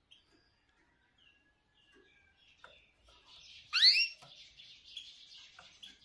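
Caged canaries chirping softly. A little before four seconds in, a loud call sweeps sharply upward, and it runs straight on into a continuous high twittering warble.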